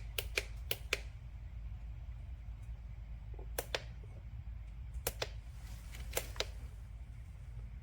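Buttons on a VTOMAN X7 portable jump starter/air compressor clicking as they are pressed. There are four quick clicks at the start, then pairs of clicks about every second or so, over a low steady hum.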